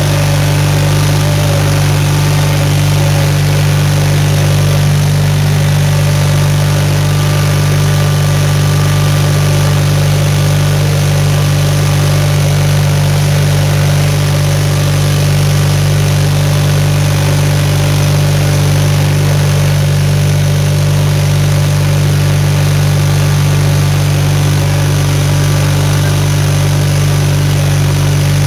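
The 520-SC Snow Chucker's engine running at a steady speed as it drives, heard from inside the cab: a loud, even drone with a strong low hum that barely changes.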